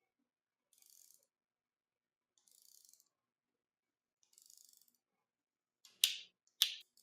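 Ratcheting torque wrench on the derailleur's cable fixing bolt, turned in three short strokes that each give a soft ratchet buzz. Two sharp clicks follow, half a second apart, near the end.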